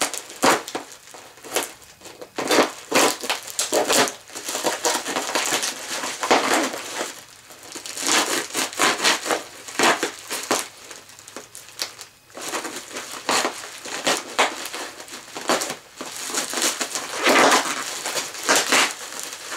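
Clear plastic packing wrap being handled, crumpled and pulled apart by hand, making irregular bursts of crinkling and crackling with short pauses.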